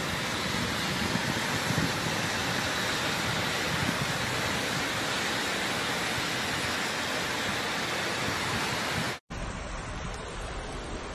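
Steady hiss of heavy rain and running floodwater. About nine seconds in it cuts to a quieter, steady rush of floodwater flowing past.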